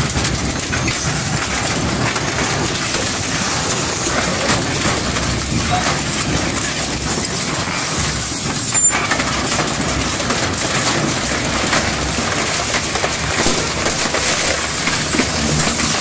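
Twin-shaft shredder tearing a sheet-steel and wood cargo box, a steady grinding din with constant crunching and snapping of metal. One sharp crack stands out near the middle.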